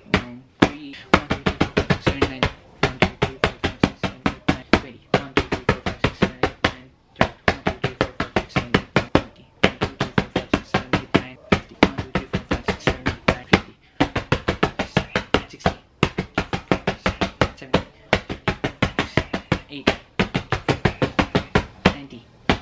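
Open hand slapping a torn paper painting lying on a bed, over and over in quick runs of several slaps a second with brief pauses between runs.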